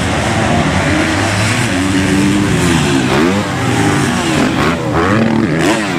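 Several motocross bikes racing, their engines revving up and down with throttle and gear changes. The overlapping engine notes rise and fall repeatedly, with quick surges about three and five seconds in.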